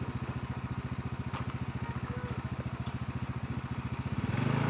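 Small engine idling steadily, a fast even low-pitched chugging, growing louder near the end.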